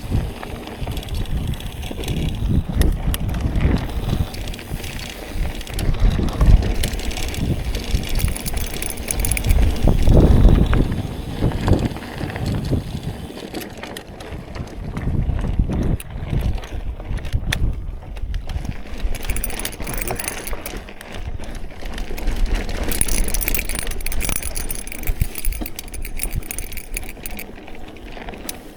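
Mountain bike being ridden on a dirt trail: tyres rolling over rough ground with uneven rumbling and scattered clicks and rattles from the bike.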